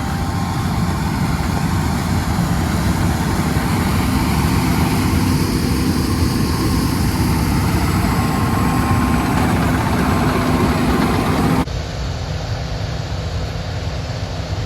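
Combine harvester running steadily under load, a loud, even machine noise with a low engine drone. About three-quarters of the way through, it cuts abruptly to a slightly quieter, duller engine drone.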